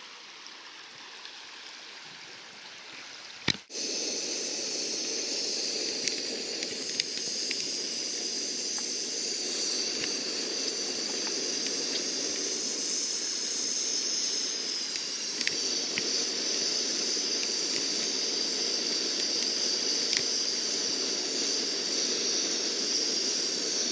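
River water rushing over rocks: a steady hiss that jumps louder after a sharp click about three and a half seconds in.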